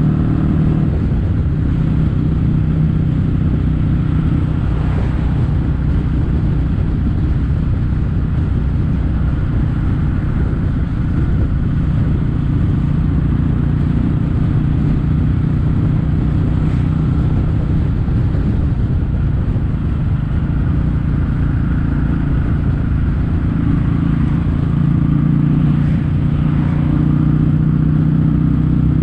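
Kawasaki W800's air-cooled parallel-twin engine running through Yamato stainless-steel Cabton-style silencers while the bike is ridden at a steady cruise.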